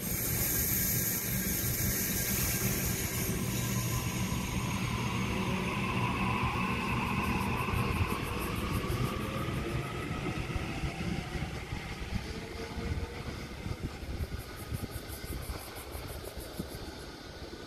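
Sydney Trains Waratah double-deck electric train pulling away, its traction motor drives whining in several tones that slide upward as it gathers speed, over the rumble of wheels on rail. The sound fades slowly as it leaves.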